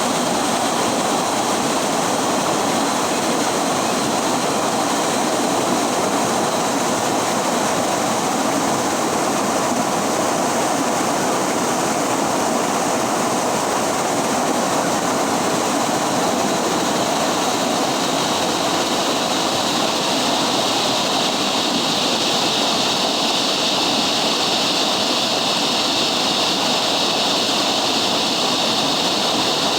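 River water rushing and splashing over rocks in a steady, unbroken wash of noise.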